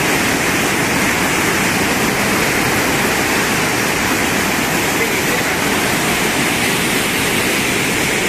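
Dunsinane Falls and the rapids below it, running high after heavy rain: a steady, loud rush of falling and tumbling water.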